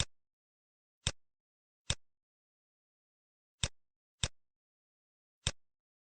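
Computer mouse clicking: six single, sharp clicks at uneven intervals, with dead silence between them.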